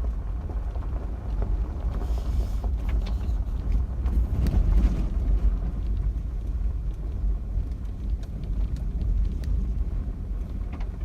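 A vehicle driving along a dry dirt and gravel road: a steady low rumble of tyres and engine, with scattered small clicks and knocks.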